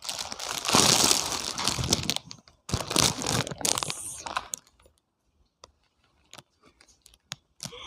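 Packaging rustling as clothes are pulled out of a parcel. It is loudest for the first two seconds, then comes in a few short bursts and thins to scattered small clicks.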